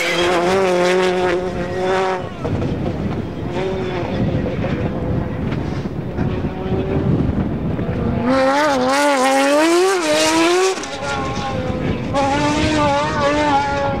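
Rally car engines revving hard, the pitch climbing and dropping again and again with gear changes and throttle lifts. The sound breaks off and changes character about two seconds in and again about eleven seconds in.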